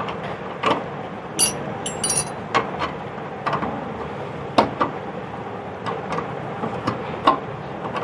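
Irregular light metallic clicks and knocks, with a brief scrape about one and a half seconds in, as the gas jet and its fitting on a gas stove's burner pipe are handled and unscrewed by hand. A steady hiss lies underneath.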